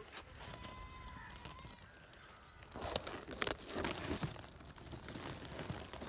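Leaves and dry grass rustling and crackling close up as they are pushed aside, in irregular crackles that start about halfway through.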